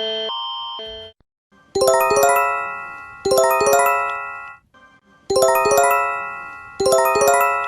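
An emergency alert chime signal: clusters of about four quickly struck, bell-like notes that ring and fade, repeated four times in two pairs. It is preceded by the end of a harsher pulsing alert tone, which stops about a second in.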